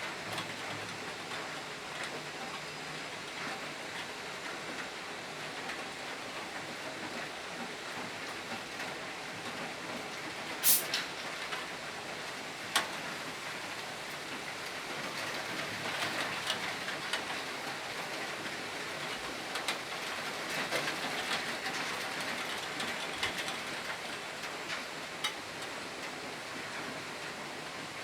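Steady rain falling, an even hiss with scattered sharper drip ticks, and two louder clicks about eleven and thirteen seconds in.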